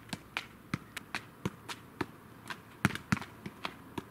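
Football being juggled with the feet: a run of short, dull thuds as the ball is kicked up again and again, about three or four touches a second, with two harder touches about three seconds in.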